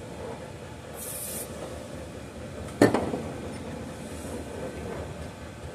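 Hand-tool work on a chainsaw: a brief scrape about a second in, then one sharp metal clink with a short ring nearly three seconds in.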